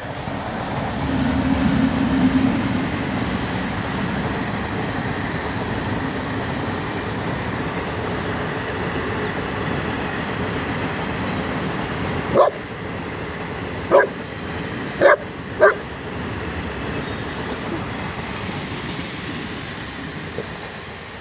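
Saint Bernard barking: a single sharp bark, then three more in quick succession a little past halfway. Under it runs a steady rushing noise.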